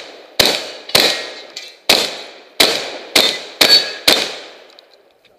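A shotgun fired about seven times in quick succession, roughly one shot every half second to second, each shot ringing out briefly; the string ends about four seconds in.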